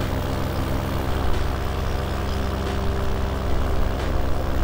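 Paramotor engine and its repaired carbon-fiber propeller running steadily at a constant throttle in flight.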